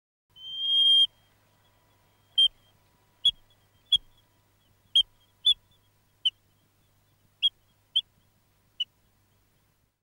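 A high, bird-like whistle that swells over less than a second, then nine short, sharp chirps at the same pitch, spaced unevenly.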